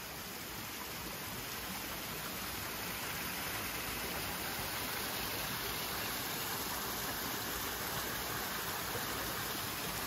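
Small mountain stream splashing between boulders: a steady rush of flowing water that grows gradually louder.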